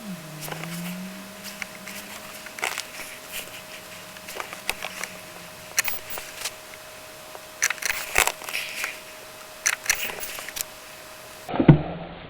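Scattered sharp clicks and crackles over a faint low hum that shifts in pitch and fades out after a few seconds. Near the end a loud low thud comes in abruptly as a cold diesel car engine begins to start.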